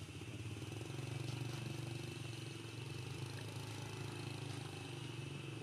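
A motor engine running steadily in the background, a low hum that swells slightly about a second in and then holds.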